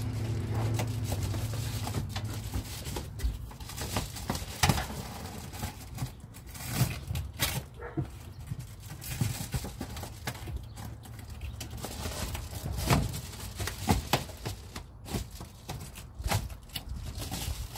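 Reflective bubble-foil insulation being handled and pressed against a van's sheet-metal wall, with irregular crinkles, pats and knocks. A low hum runs for the first couple of seconds.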